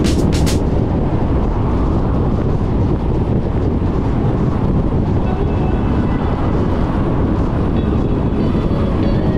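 Steady low rumble of a car travelling at speed on a motorway: tyre, road and wind noise with no clear changes.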